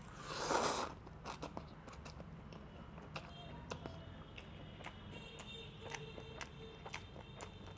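A person slurping a forkful of instant ramen noodles in one short noisy slurp about half a second in, then chewing quietly, with faint small clicks.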